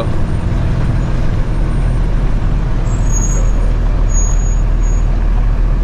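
Tractor-trailer's diesel engine running steadily while driving, a deep rumble heard from inside the cab. Faint high-pitched squeals come and go in the middle.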